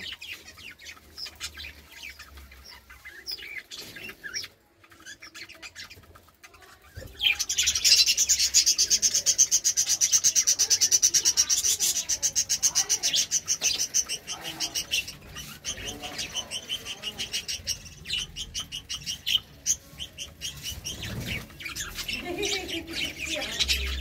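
Budgerigars chattering: scattered high chirps at first, then about seven seconds in a loud, rapid run of chirps that goes on and slowly eases off.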